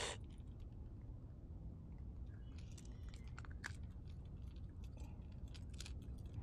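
Faint scattered clicks and rustles of hands handling a small mangrove snapper and working the hook free, starting about two and a half seconds in, over a low steady rumble.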